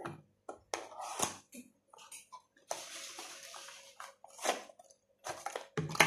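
Cardboard box being handled and opened, with scraping and rustling as a small plastic eye-wash bottle is slid out of it, and a sharp knock near the end.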